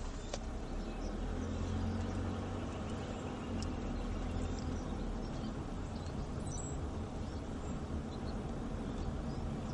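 Car running along a street, heard inside the cabin: a steady low engine and road rumble.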